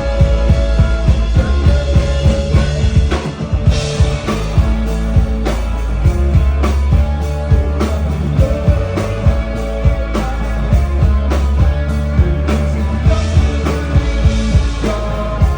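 Live rock band playing a song, with a drum kit keeping a steady beat.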